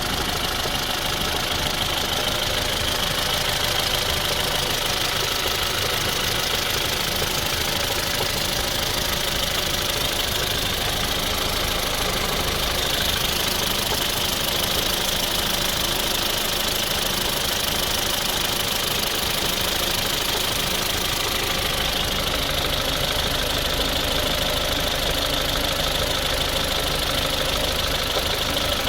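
Ford Fusion engine running steadily with no change in speed, an extraneous noise audible in its running that the owner takes for a fault.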